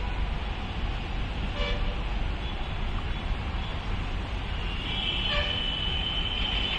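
Steady low rumbling noise with two brief horn-like toots, about a second and a half in and about five seconds in, and a thin high tone rising in the last second or two.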